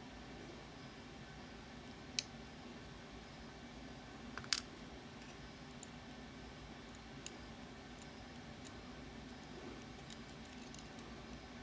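Small metal lock parts clicking as the Ruko Garant 10 lock is taken apart and its barrels are worked out: scattered faint ticks, with a sharper click about 2 seconds in and the loudest about 4 and a half seconds in. A steady low hum runs underneath.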